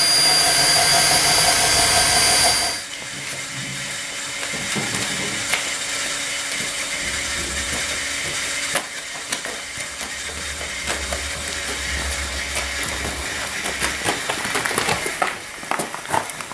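A cordless drill runs at speed for about three seconds, its whine rising briefly as it spins up, then cuts off. After that only a low background rumble with scattered light knocks and clatter.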